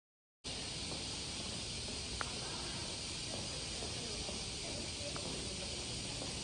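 Silence for about half a second, then a steady, even hiss of indoor room ambience, with two faint ticks.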